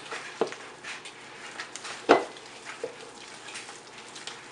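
Bare hands squishing and kneading raw ground beef mixed with egg, breadcrumbs and Parmesan in a mixing bowl: irregular wet squelching with small clicks, and a sharp knock about two seconds in.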